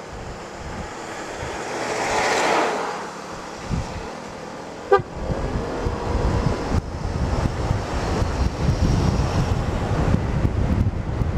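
Wind rushing over the microphone of a riding scooter, with road noise swelling and fading about two seconds in. A short horn toot about five seconds in, after which low wind buffeting grows louder.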